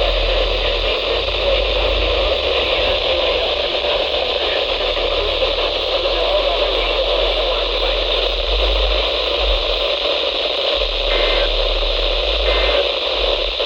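Weather radio receiver giving a steady hiss of static, with only faint traces of a voice beneath it.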